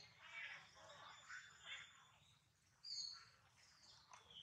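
Faint birds chirping, a few short high calls with a brighter one about three seconds in.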